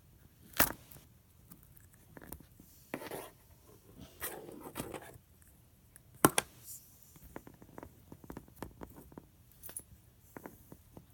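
Slime being squished and stretched by hand, with sticky pops and small crackling clicks. Two sharper pops stand out, about half a second in and about six seconds in.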